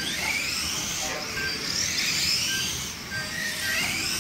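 Several electric radio-controlled stock cars racing, their motors whining at high pitch, rising and falling as the cars speed up and slow down round the track.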